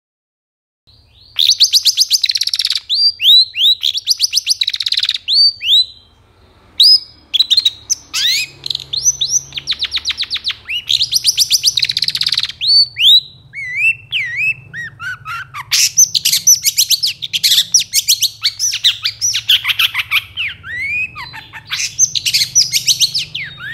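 Long-tailed shrike (cendet) in full song, starting about a second in: loud phrases of fast repeated notes and harsh chatter, broken by short whistled glides. This vigorous singing is the kind used as a lure to provoke other shrikes into answering.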